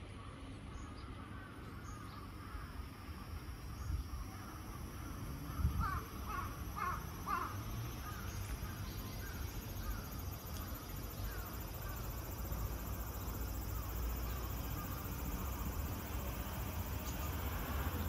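A crow cawing about four times in quick succession around the middle, over a steady, faint, high hiss-like drone that fits the song of a large brown cicada (Graptopsaltria nigrofuscata) in the tree.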